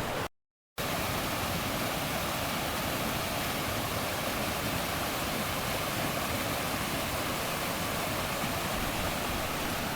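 A brief dead silence, then a steady, even rushing noise with no breaks or distinct events.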